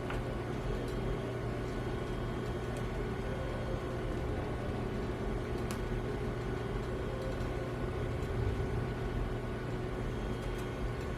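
Steady low mechanical hum with a constant faint tone, broken by a few faint light clicks.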